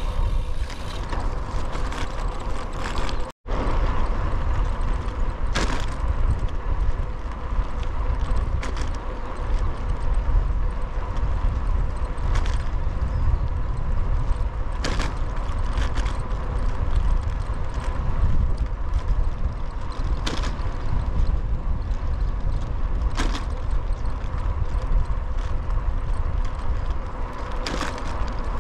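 Wind rumbling over the microphone of a camera riding along on a moving bicycle in a crosswind, with steady road noise and a sharp tick every few seconds. A split-second dropout about three seconds in.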